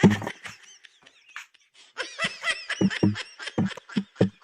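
A person laughing in quick, short, high-pitched bursts that start about two seconds in, after a pause.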